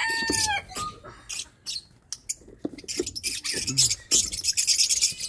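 Lovebirds chattering in rapid, high-pitched chirps and squeaks. In the first half-second the tail of a rooster's crow falls away.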